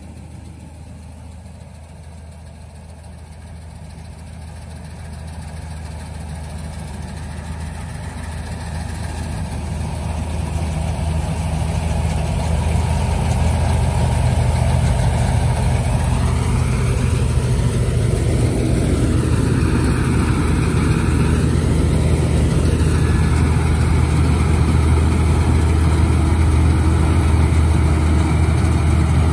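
A heavy machine's engine running steadily with a low hum, growing louder over the first dozen seconds or so and then holding steady.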